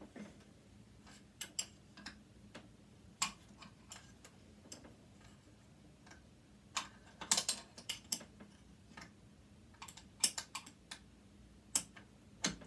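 Irregular sharp metallic clicks and taps of screwdrivers and small tools working on a sewing machine's metal parts, with a quick cluster of clicks about seven seconds in.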